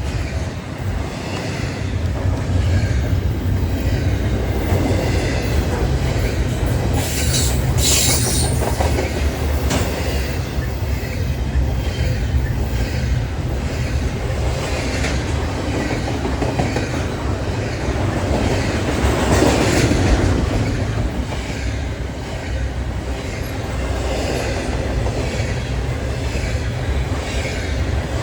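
Norfolk Southern freight train cars rolling past, a steady low rumble with the wheels clicking in an even rhythm over the rail joints. A brief high wheel squeal comes about eight seconds in.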